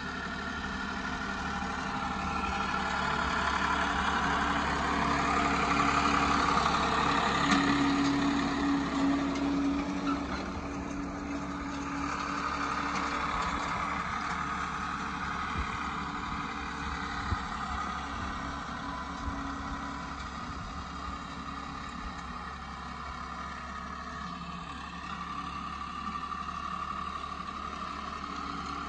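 Diesel tractor engine running steadily while pulling a disc harrow through tilled soil. It grows louder as the tractor passes close, loudest about a quarter of the way in, then falls back as it moves away.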